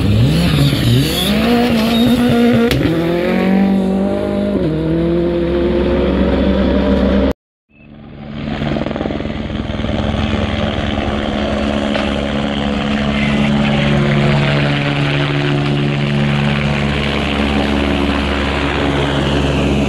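Rally car accelerating hard on a gravel stage, its engine pitch rising and breaking at several gear changes, then fading. After a sudden cut, a helicopter flies overhead with a steady drone.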